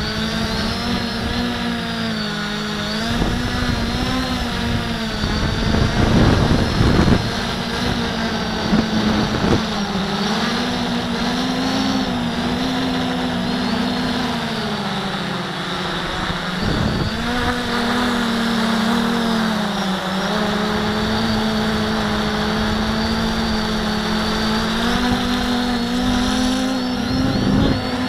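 Q450 quadcopter's electric motors and propellers whining steadily, their pitch rising and falling as it flies, with a few bursts of low rumble, the loudest about six seconds in.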